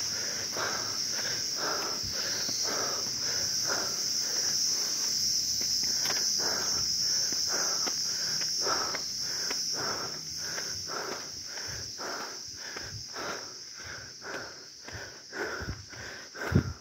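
A steady, high-pitched insect chorus, with regular footsteps on a rough stone and dirt track about twice a second. The insects grow quieter in the last few seconds, leaving the footsteps clearer, with one sharper thump near the end.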